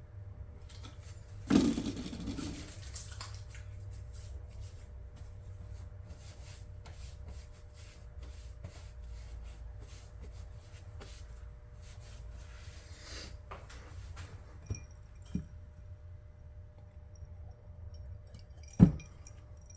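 Hands handling the opened chronometer's circuit boards and housing: a scrape and rustle about a second and a half in, then scattered small clicks and taps, with a sharper knock near the end. A faint steady hum runs underneath.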